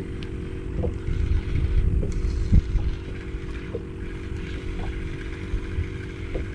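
A boat motor running with a steady hum, and wind rumbling on the microphone. A few light ticks come through over it.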